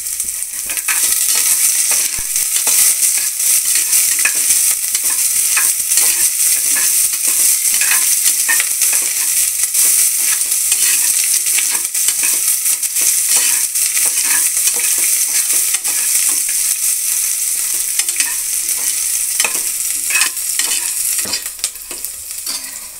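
Diced potatoes, peanuts, onion and curry leaves sizzling in hot oil in a pressure cooker, stirred with a perforated metal spatula that repeatedly scrapes and taps against the bottom of the pot.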